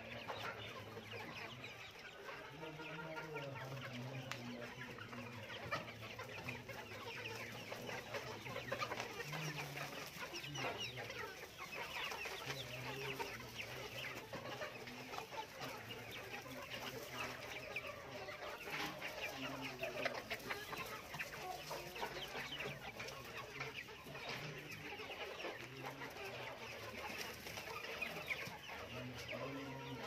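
A flock of Australorp chickens clucking and calling, many short calls from many birds overlapping without a break.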